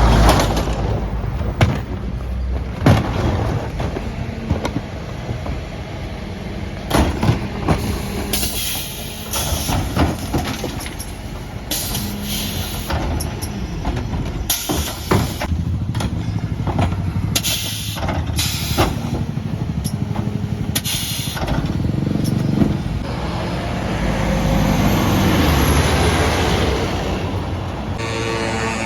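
Mercedes Econic refuse truck's diesel engine running, with repeated short hisses of compressed air and a string of sharp clanks and bangs. The engine note swells near the end.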